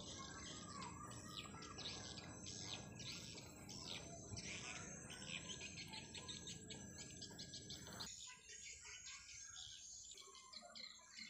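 Faint outdoor birdsong: small birds chirping many short, quickly falling notes again and again, over a low rumble that drops away about eight seconds in.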